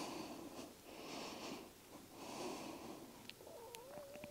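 Faint, steady breathing, one soft breath sound about every second. Near the end there is a brief wavering whistle-like tone and a few light clicks.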